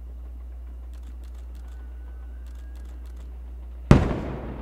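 Aerial firework shell bursting about four seconds in: one sharp, loud boom followed by a long echoing decay. Before it, a few faint clicks and a thin, faint whistle.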